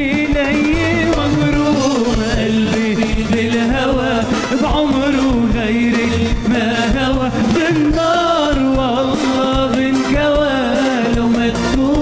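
Live band playing Arabic pop music: darbuka and drum-kit percussion with electric guitar and keyboard, under an ornamented, wavering melody line.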